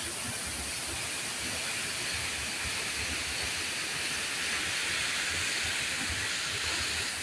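Waterfall: the steady rushing noise of falling water, even and unbroken.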